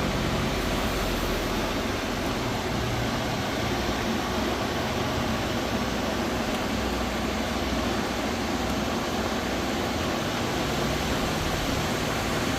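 Air-conditioner blower fan motor from a Nissan Navara D40, bench-tested on a small portable battery, running with a steady whirring hum. It will not start on its own and only spins after a push by hand, which the owners take as a sign that the motor is dead.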